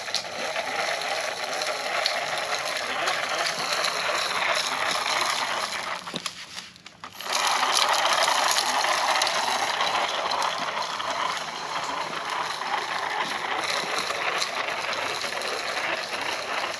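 Hand-cranked broadcast seed spreader being cranked steadily, its gears whirring and rattling as seed scatters onto dry leaves, with a brief pause about six seconds in before the cranking resumes.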